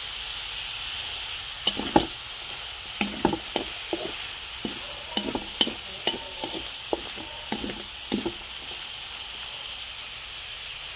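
Stir-fry of carrots, Baguio beans, ham and squid balls sizzling in oil in a wok. From about two seconds in until about eight seconds in, a spatula clicks and scrapes against the pan as the food is stirred.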